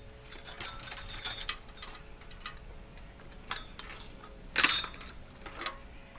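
Metal parts of a ceiling fan's light fitting clinking and knocking as they are bent and broken off by hand, in scattered short clinks with a louder clank about four and a half seconds in.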